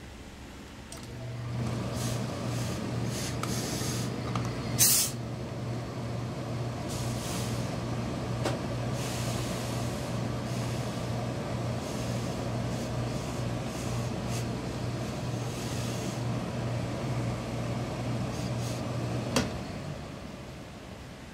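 Tailor's steam iron pressing equipment running: a steady electric hum with a rush of air while the jacket lining is pressed, with one short hiss of steam about five seconds in. It stops near the end.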